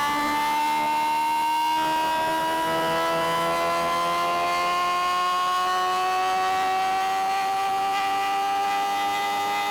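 Suzuki GSX-R750's inline-four engine at high revs under acceleration, its pitch dropping at a gear change right at the start and then rising slowly and steadily as the bike pulls.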